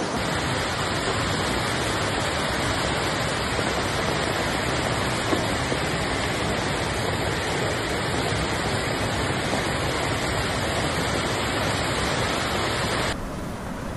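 Floodwater rushing fast along a street, a steady dense noise of moving water. About thirteen seconds in it turns quieter and duller.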